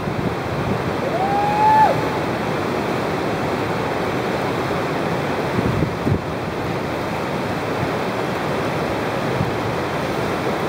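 Steady roar of a big, muddy whitewater rapid churning and crashing. About a second and a half in, a person gives a short rising whoop.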